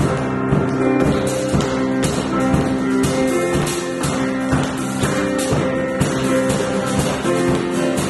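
Worship band music: sustained chords held over a steady rhythmic beat, with no singing.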